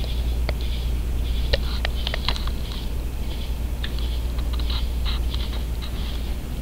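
A large moth batting against window glass: a dozen or so light ticks at uneven intervals, bunched together about two seconds in and again later, over a steady low hum.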